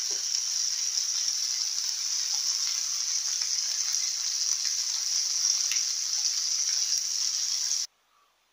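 Sardines shallow-frying in oil in a frying pan: a steady sizzle with scattered small crackles and pops. It cuts off abruptly near the end.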